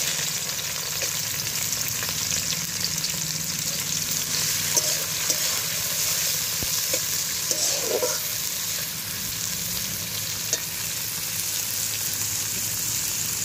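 Sliced onions sizzling steadily in hot vegetable oil in a large metal wok, with a few light scrapes of a steel spatula as they are stirred.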